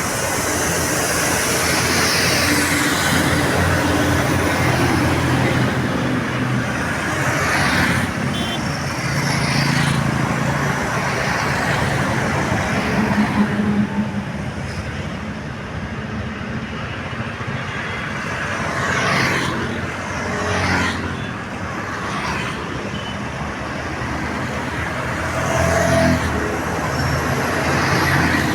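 Busy road traffic with buses and other vehicles driving past one after another, engine and tyre noise swelling and fading as each goes by.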